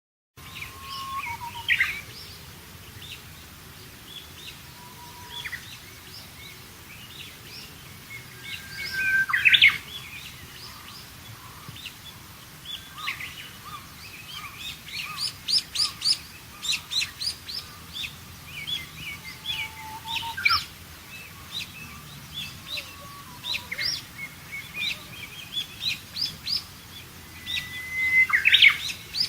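Dawn chorus of several wild birds singing and calling over one another, with chirps and quick trills throughout. The loudest calls come twice, a little before halfway and near the end: each is a held whistle that breaks into a quick rising flourish.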